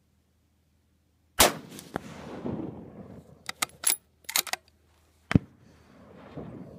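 Two shots from a Savage 10FP bolt-action rifle in .223 Remington, about four seconds apart, each followed by a rolling echo. Between them the bolt is worked in a quick series of sharp metallic clicks, ejecting the spent case.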